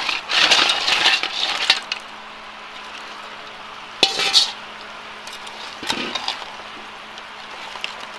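Raw blue crabs tipped from a metal bowl into a pot of curry, their shells clattering against the metal for about a second and a half. A sharp metal clink about four seconds in, and a shorter clatter near six seconds as the crabs shift in the pot.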